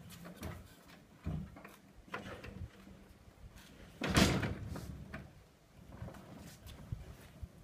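Casters under a Craftsman table saw on a wooden caster stand rolling over concrete: irregular knocks and rattles, with a loud thump and rumble about four seconds in.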